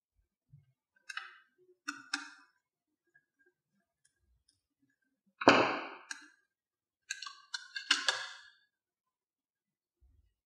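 Handling noise from wiring a plastic dimmer housing's screw terminal blocks with a screwdriver and fingers: scattered sharp clicks and light knocks, the loudest a knock about five and a half seconds in, then a quick cluster of clicks around eight seconds.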